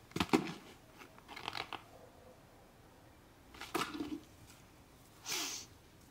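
Sheets of paper rustling and being handled, in four short bursts with pauses between them.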